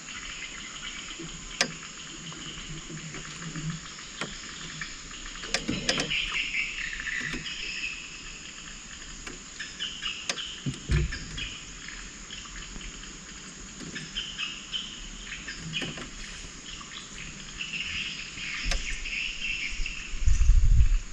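Insects in riverside forest shrilling with a steady, high drone, mixed with scattered bird chirps. A few sharp clicks stand out, and there is a loud low thump near the end.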